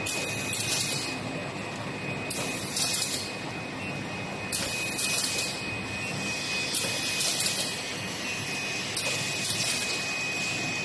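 Fully automatic portable-pack wet wipes machine running: a steady mechanical drone with a thin high whine, and a short hiss that repeats about every two seconds with each machine cycle.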